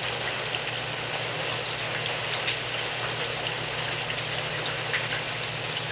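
White noise sound machine playing its rain sound: a steady hiss of rain flecked with fine ticks, over a low steady hum.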